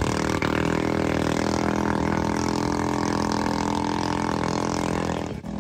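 Nittoo 7.5 hp four-stroke gasoline engine driving a small boat, running steadily at one speed. The sound cuts off sharply near the end.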